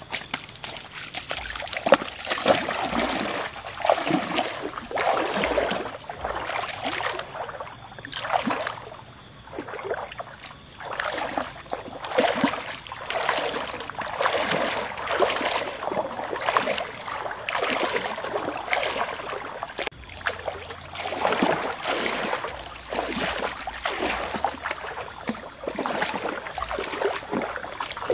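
Legs wading through shallow stream water, sloshing and splashing with each stride roughly once a second. A steady high-pitched tone sits underneath.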